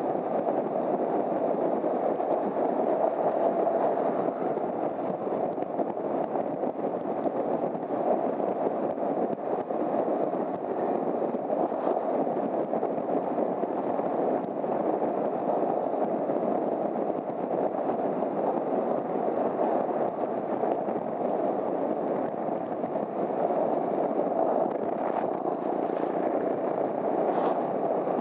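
Honda CBR250R motorcycle on the move: a steady, unbroken rush of wind and engine noise with no changes in pace.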